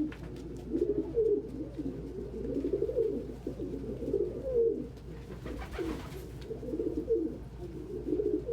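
Several domestic pigeons cooing at once, their low coos overlapping one another.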